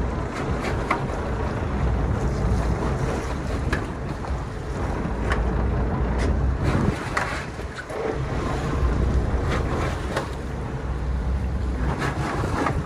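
Boat engine running with a steady low rumble, wind buffeting the microphone, and a few sharp clicks and knocks scattered through.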